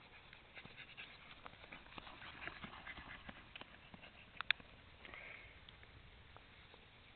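Faint footfalls on grass from a barefoot runner and a trotting cocker spaniel, with scattered light clicks and a sharper double click about four and a half seconds in.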